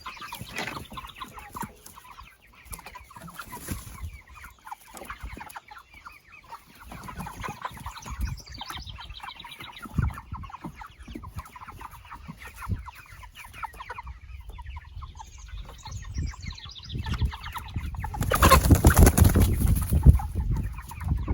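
A flock of seven-week-old meat chickens clucking and calling on and off. A loud rustling burst of noise comes about eighteen seconds in and lasts a couple of seconds.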